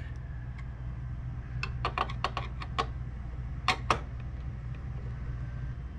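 Long screwdriver tightening a CPU cooler's spring-loaded mounting screws down through the heatsink: a quick run of light clicks about one and a half seconds in, then a louder double click a second later, as the screws are drawn down toward snug.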